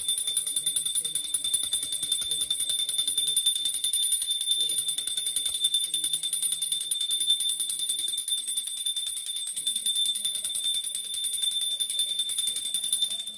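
Small brass hand bell (puja ghanti) rung rapidly and continuously during aarti: a steady, bright, high ringing that stops suddenly near the end.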